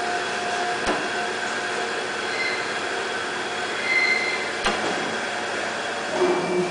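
Imacal strip measuring and rewinding machine running, its motor-driven reel winding a strip through the traversing guide: a steady mechanical whir with thin, high squealing tones that come and go, and two sharp clicks.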